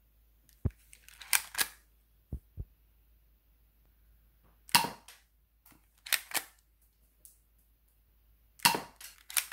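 Monica XD40 spring air-cocking airsoft pistol being fired, a series of sharp snaps a few seconds apart, with fainter clicks and knocks in between.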